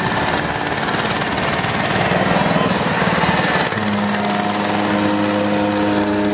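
Small exposed engine of a motorised parade cart running with a fast, even rattle. About four seconds in, a steady low pitched hum joins it.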